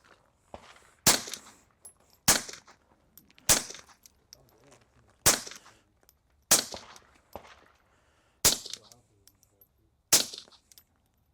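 Suppressed .22 Ruger Mark fired through a Shadow Silencers Duo Mini suppressor: seven single shots at an uneven pace, about one to two seconds apart, each a sharp report with a brief echoing tail.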